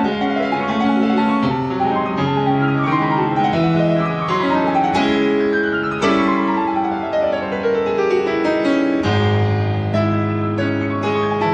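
Background piano music with quick falling runs of notes; a low bass note comes in about nine seconds in.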